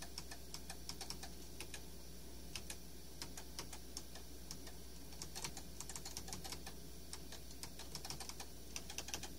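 Key presses on a computer keyboard: scattered single clicks with quick runs of taps about halfway through and near the end, as a date is typed into the computer. A faint steady low hum sits underneath.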